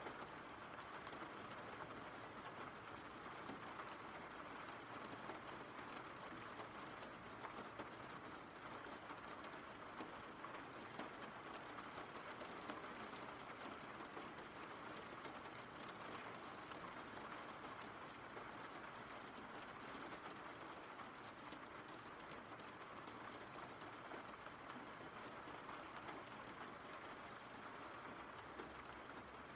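Steady rain falling: an even hiss with faint, scattered drop ticks.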